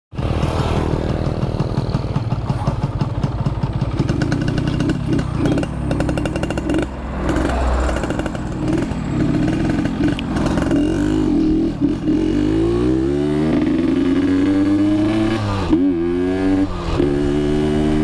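Yamaha RX-King's two-stroke single-cylinder engine running under way. Its pitch climbs steadily for several seconds past the middle as it accelerates, then drops sharply, and then it runs steady again.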